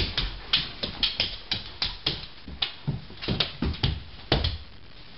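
A Maremma sheepdog shifting and turning on a hardwood floor: a run of about fifteen irregular knocks and claw taps on the wood, with dull thuds under some of them, over the first four and a half seconds.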